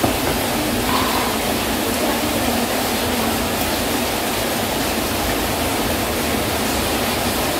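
Heavy rain pouring down: a loud, steady hiss.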